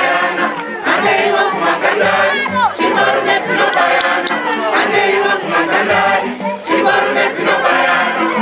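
A group of voices singing together, choir-style, in short repeated phrases.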